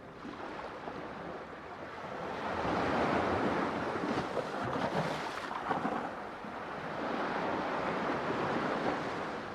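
Ocean surf: waves breaking and washing in, a steady rush that swells twice, the first surge about three to six seconds in and a second toward the end.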